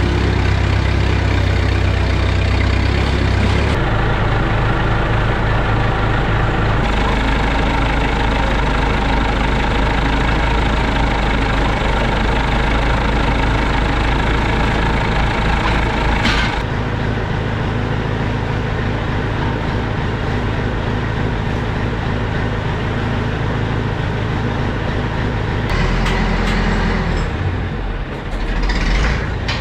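Diesel farm tractor engine running steadily under way, its engine speed shifting several times as it manoeuvres.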